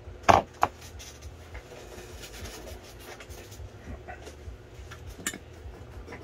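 Small hand tools being handled and set down on a workbench: two sharp clicks just after the start and another about five seconds in, with a few faint ticks over a low steady hum.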